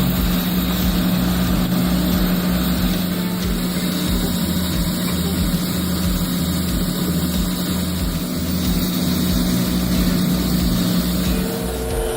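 Large mining excavator's diesel engine running with a steady drone and a low pulsing rumble.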